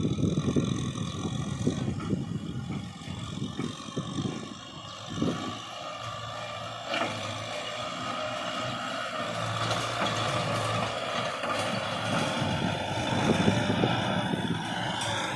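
Kubota tractor's diesel engine running steadily under load while its rear rotary tiller churns through dry, clumpy soil.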